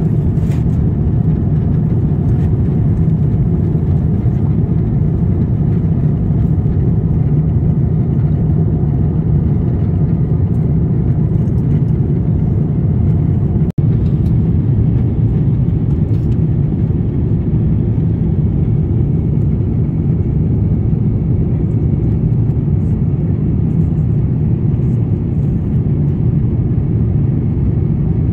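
Steady cabin noise of a jet airliner in flight: an even, low rush of engines and airflow heard from a window seat. It cuts out for an instant about halfway through.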